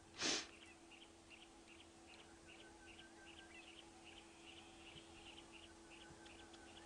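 A short breathy puff close to the microphone about a quarter second in. After it, faint high bird chirps repeat over a steady low hum.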